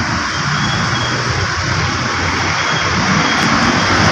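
Steady rushing noise with a low hum under it.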